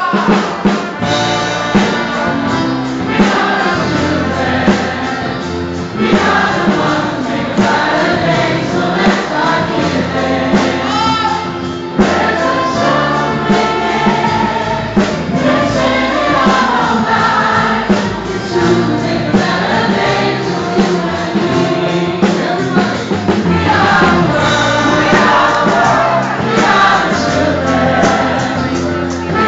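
A group of people singing together over amplified backing music.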